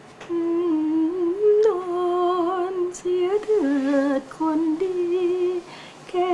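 A woman humming and singing a slow Thai lullaby, holding long notes with a wavering vibrato and stepping between them.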